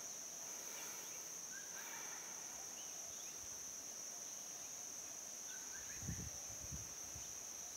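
Faint outdoor forest ambience: a steady high-pitched insect drone, with scattered faint bird chirps. A couple of soft low thumps come about six seconds in.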